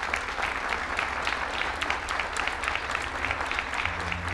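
Audience applauding, many hands clapping steadily. A low steady tone comes in near the end.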